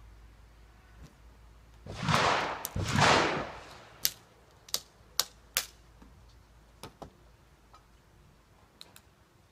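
Ramrod pushed down the barrel of a muzzle-loading underhammer pistol, two long scraping strokes as the charge is seated. These are followed by a string of sharp clicks and taps as the rod and pistol are handled.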